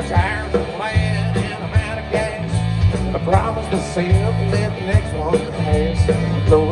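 Live country-rock band playing loud: electric guitars and bass over a steady drum beat.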